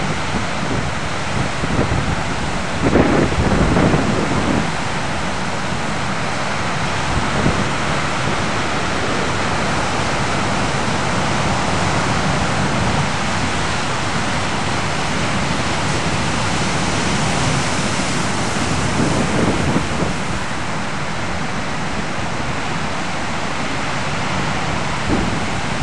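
Ocean surf breaking and washing onto a beach, a steady rush of water with a couple of louder, deeper swells about three seconds in and again near twenty seconds.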